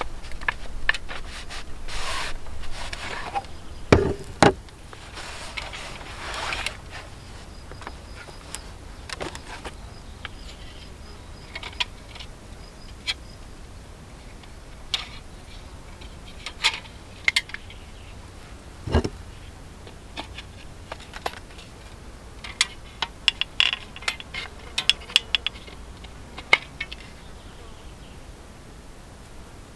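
Camp gear being handled in the back of an SUV: a fabric bag rustles for the first several seconds, something is set down with a heavy thump twice, and then wooden sticks click and clack against each other in quick runs near the end.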